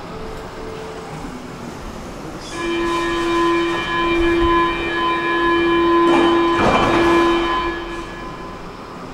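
Stockholm metro train at the platform: a steady bell-like ringing tone starts about two and a half seconds in and holds for about five seconds, with a short rush of noise about six seconds in, over the train's low rumble.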